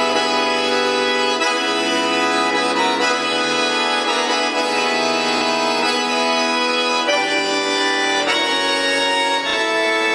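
Bayan (chromatic button accordion) playing solo: full, sustained chords with the harmony shifting every few seconds.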